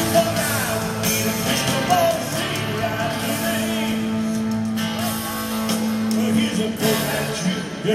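Live rock band playing an instrumental passage on electric guitars, bass, drums and keyboards, with a long held note in the middle.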